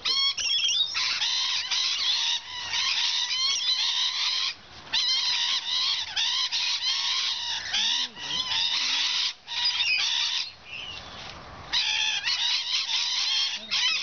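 A flock of rainbow lorikeets screeching and chattering, many shrill calls overlapping, broken by a few brief lulls.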